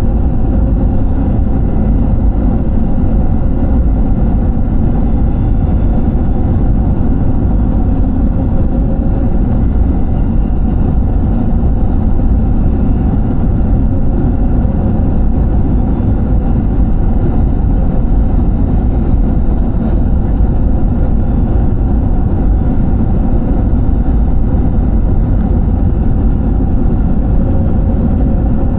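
Steady loud drone inside an airliner's cabin: jet engine and airflow noise heard from a window seat, deep and unchanging.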